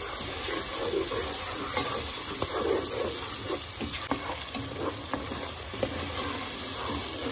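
Peas and ground spices frying in oil in a pot, a steady sizzle, with a spatula scraping and knocking against the pan a few times as they are stirred.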